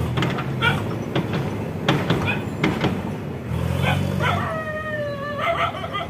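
A dog barking several times, then a long whining call that slides slightly down in pitch. A diesel engine runs underneath.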